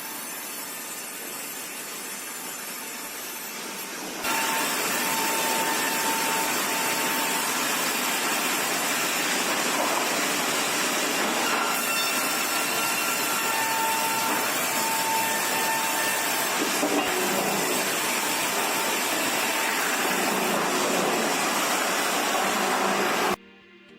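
Pine sawmill machinery running: a steady, dense rushing noise with faint whining tones. It gets louder about four seconds in and cuts off abruptly near the end.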